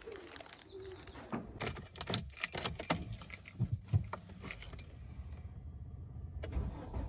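Car keys jangling, a run of sharp clicks and rattles for about three seconds, with a pigeon cooing briefly at the start.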